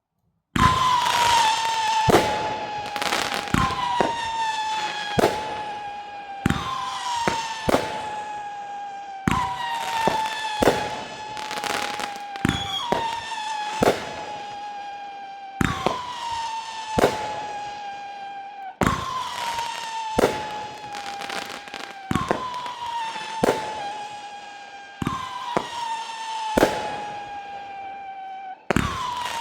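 Operation Hang Time consumer firework cake firing shot after shot, about every two to three seconds, each shot with a loud whistling tail that slides slightly down in pitch, and sharp cracking breaks in between.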